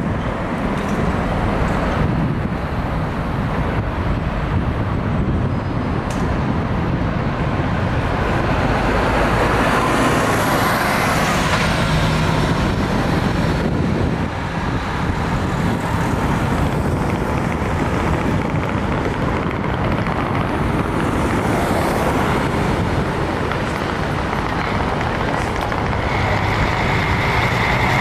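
City street traffic: buses and cars driving past with their engines running. A whine rises and falls about ten seconds in, and a steady high tone sets in near the end.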